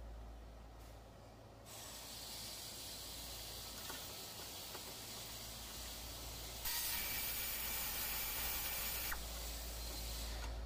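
A steady hiss starts a couple of seconds in. It gets much louder for about two and a half seconds, then drops back, over a constant low hum.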